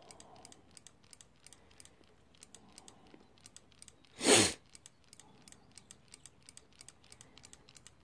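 Scooter front brake lever being pumped to bleed the hydraulic brake, making a quick, uneven run of light clicks, several a second. A brief loud burst of noise about four seconds in.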